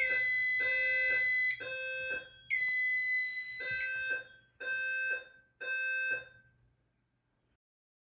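Fire alarm voice-evacuation speaker sounding its alert tone in a temporal-three pattern: three low buzzing pulses, a pause, then three more. Over the first pulses a louder, high-pitched piezo sounder on the fire alarm annunciator gives two long steady beeps, which stop a little under four seconds in. All sound ends about two-thirds of the way through.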